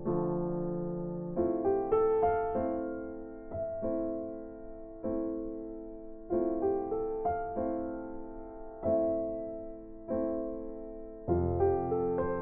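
Background music: a slow electric piano playing soft chords, each struck and left to fade.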